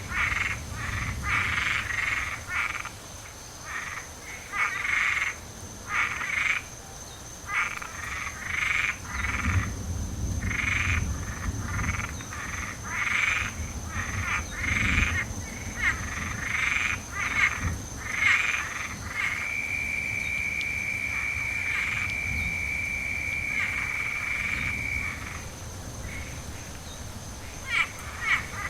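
Chorus of frogs croaking in quick pulsed bursts, with one long steady trill lasting about six seconds past the middle. A low rumble of distant thunder swells and fades underneath.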